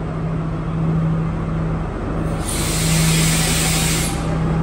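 Sri Lanka Railways Class S14 diesel multiple unit pulling slowly into the platform, its diesel engine running with a steady low drone. About halfway through comes a hiss of air that lasts nearly two seconds.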